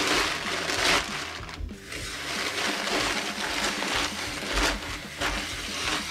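Soaked, crumpled newspaper being kneaded and pressed by hand in a sink full of water: irregular sloshing and soggy crinkling.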